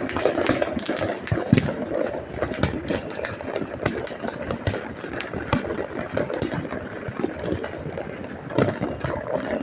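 Many fireworks going off at once: a dense, unbroken run of cracks, pops and bangs.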